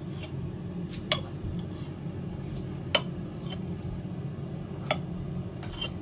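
A kitchen knife cutting through a soft roll of potato dough and tapping on a hard chopping board: three sharp clicks about two seconds apart, with fainter taps between them.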